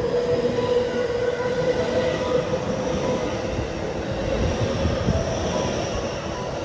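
JR West 223-series electric train running slowly alongside the platform as it brakes to a stop. A rumble of wheels on rail lies under several steady high whines from the motors and brakes.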